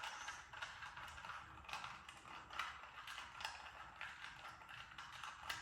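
Plastic 2x2 Rubik's cube being turned again and again in alternating right and top face turns, each turn a short, faint clicking scrape, a little more than one a second.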